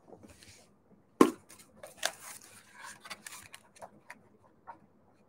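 A book being handled: a sharp knock about a second in as it is picked up, then its pages rustling and flipping, with a few small taps that trail off.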